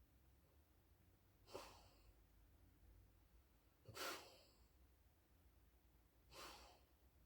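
Alaskan Malamute breathing noisily in her sleep: three breaths about two and a half seconds apart, the middle one the loudest.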